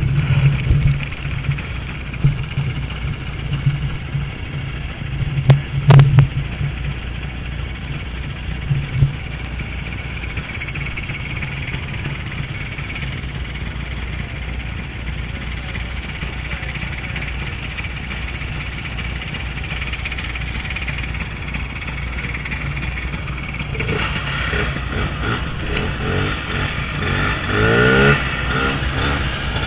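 Vintage snowmobile engine running as the sled rides over snow, with a sharp knock about six seconds in. Near the end the engine revs up and down.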